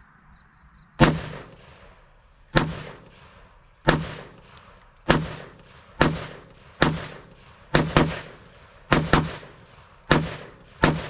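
AR-15 rifle firing single shots of steel-cased ammunition, about a dozen shots at an uneven pace of roughly one a second, a few in quick pairs, each with a short echo.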